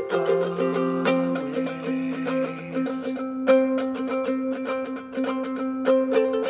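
Live indie band playing an instrumental passage with no vocals: strummed, plucked string instruments in a steady rhythm over long held notes.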